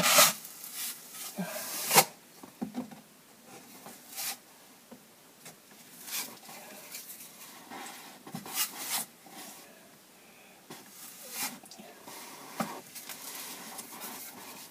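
Steel drywall knife scraping joint compound, in short scrapes and clicks every second or two, the sharpest at the start and about two seconds in.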